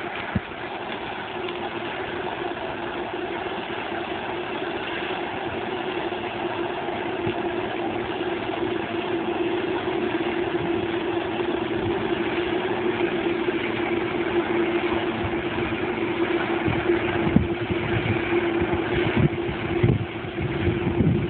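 Claas Medion 340 combine harvester running while harvesting sunflowers: a steady engine and machinery drone with a constant hum, growing slowly louder. A few short knocks come near the end.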